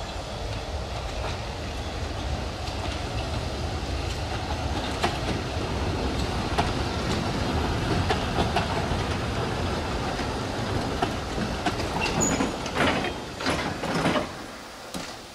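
A 760 mm narrow-gauge passenger train rolls slowly past, pushed by its small electric locomotive. Its wheels rumble and click over the rail joints, growing louder as it draws level. A run of heavier clicks comes near the end, with a brief high wheel squeal just before them.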